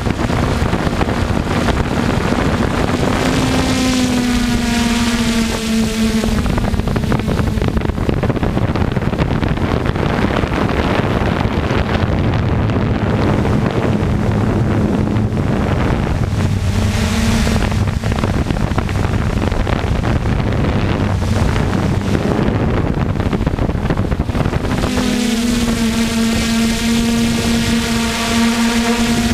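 DJI F450 quadcopter's E300 brushless motors and propellers running in flight, a steady hum whose pitch shifts a little, turning into a fuller whine about four seconds in and again near the end. Wind rushes over the microphone throughout.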